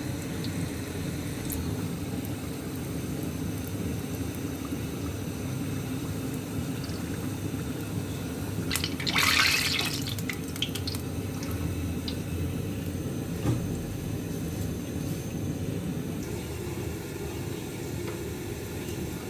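Samosas deep-frying in hot oil in a kadhai, a steady bubbling sizzle. About nine seconds in comes a louder burst of sizzling and splashing, lasting about a second, as the samosas are lifted out of the oil with a wire skimmer.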